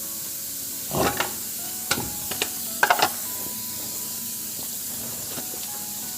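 A handful of sharp metallic clunks and knocks, bunched between about one and three seconds in, as a rear wheel is taken off a pickup truck's hub, over a steady hiss.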